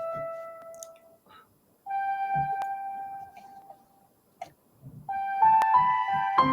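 Slow, sparse keyboard music of Japan-inspired original composition: single held notes separated by short pauses, with more notes layering into chords near the end.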